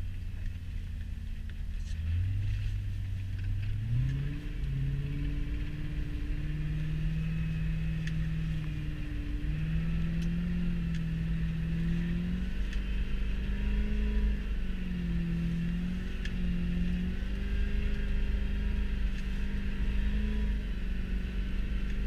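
Straight-piped C4 Corvette V8 under way, heard from inside the cabin. The engine note climbs over the first few seconds and falls back about four seconds in, then holds fairly steady with small rises and dips as the throttle changes.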